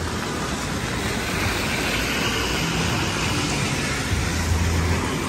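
Steady rain falling on wet city pavement, with the hiss of car tyres on the wet road swelling and fading through the middle, and a low rumble near the end.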